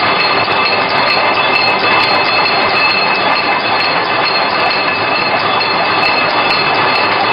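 Double-twisted barbed wire machine running: a loud, steady metallic clatter with a constant high-pitched whine over it.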